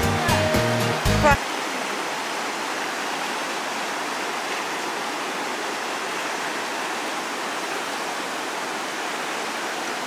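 Background music with a steady bass line cuts off about a second in, leaving the steady rush of a mountain river running over small rapids.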